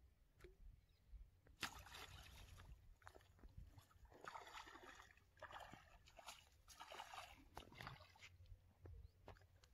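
Hooked fish thrashing and splashing at the pond surface as it is played in, a run of irregular short splashes starting about a second and a half in.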